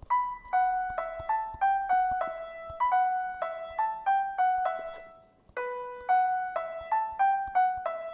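Piano voice of an electronic keyboard playing a single-note melody (B, F♯, E, A, G, F♯, E, repeated), each note struck and left to fade. After a short pause about five seconds in, the phrase starts again from a low B.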